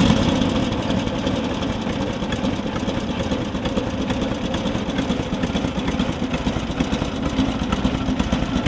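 A 1948 Indian Chief's side-valve V-twin engine idling steadily with an even ticking beat. It gets quieter in the first second, then settles.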